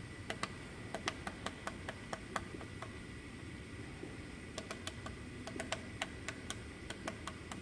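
Woodpecker pecking at wood: irregular single sharp taps, a few a second, in two spells with a pause of about two seconds between them.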